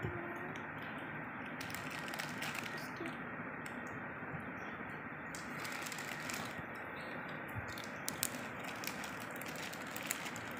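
Crinkling and clicking of a clear plastic bag of wrapped toffees being handled, over a steady background hiss.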